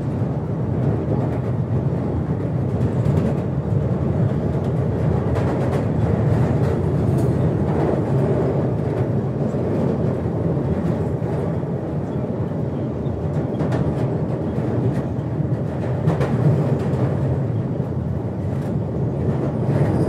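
London Underground Victoria line train running, heard from inside the carriage: a steady low rumble from wheels and running gear, with scattered metallic clicks and rattles.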